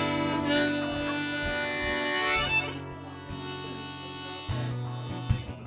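Harmonica playing held chords in a folk tune, louder at first and softer after about three seconds.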